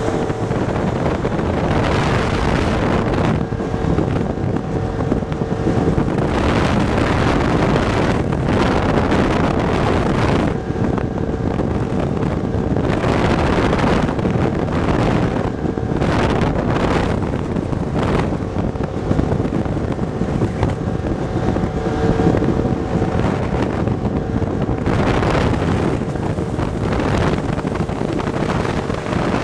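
Small motorboat under way at speed: a steady engine drone beneath heavy wind buffeting on the microphone and the rush of water along the hull through chop.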